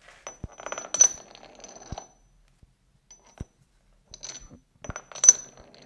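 Steel cap screws clinking and rattling against a machined steel block, the hardest knocks giving a high metallic ping. The sounds come in two bursts, about a second in and again near the end.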